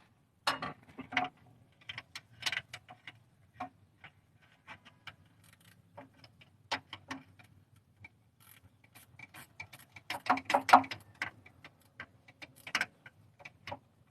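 Ratcheting wrench clicking in short runs of strokes with brief pauses while a stubborn bolt is turned out.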